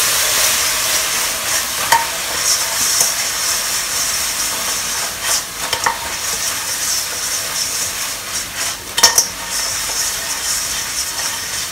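Crispy fried chicken wings tossed in a non-stick wok of bubbling sticky hoisin sauce: steady sizzling, with a few short knocks and scrapes as the wok is shaken and the wings land, the loudest about nine seconds in.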